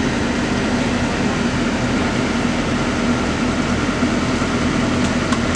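Heavy diesel engine running steadily, a constant low drone, with a couple of faint clicks near the end.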